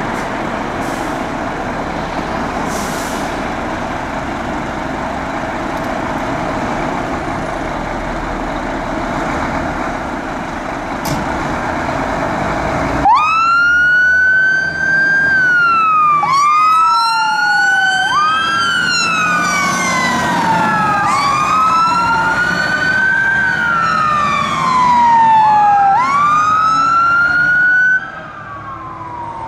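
Scania fire engines' diesel engines running steadily. About halfway through, two sirens start wailing out of step, each sweeping quickly up and then sliding slowly down, far louder than the engines. The sirens cut off abruptly near the end.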